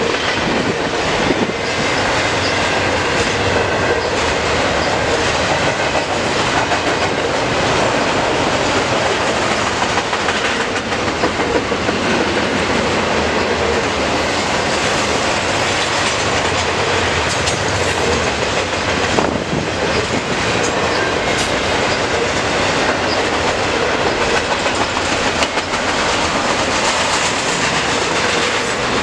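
Double-stack container well cars of a CN intermodal freight train rolling past, their steel wheels running on the rails in a steady, loud noise.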